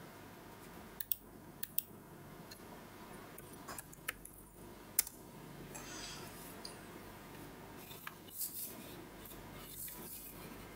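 Computer mouse clicks: single sharp clicks every second or few over faint room noise.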